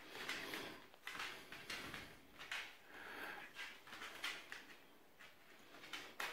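A cocker spaniel puppy nosing and pawing a small ball across a hard tiled floor: a string of faint, short scuffs and knocks, with a sharper click near the end.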